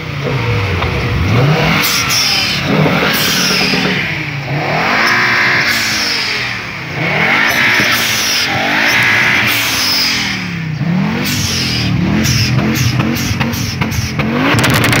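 A car engine being revved over and over, its pitch falling and climbing again every second or two. Near the end comes a fast run of sharp pops and crackles.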